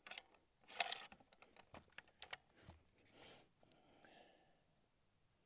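Faint scattered clicks and rustles of the shooter handling the rifle and shifting his body as he settles into an awkward firing position, with near silence in between.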